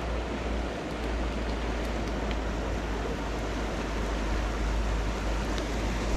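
Steady rushing of a mountain river, with a low rumble of wind on the microphone and a few faint clicks.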